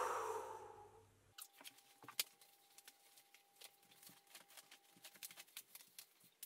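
A woman's breathy exhale through pursed lips, fading out within the first second. It cuts off abruptly, leaving faint scattered clicks and a faint steady tone.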